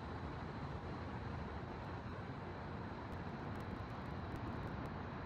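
Steady low rumble of city background noise, with a faint steady high-pitched whine.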